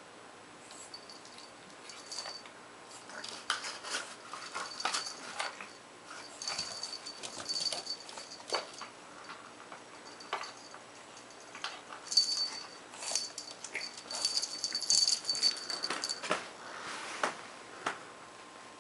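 Pug puppy moving about on a wooden floor: scattered small clicks and knocks, busiest in the second half, with short bursts of high metallic ringing.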